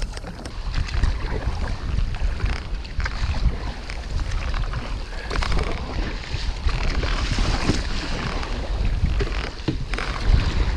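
Strong ocean wind buffeting the microphone, with choppy waves and the irregular splash of kayak paddle strokes in the water.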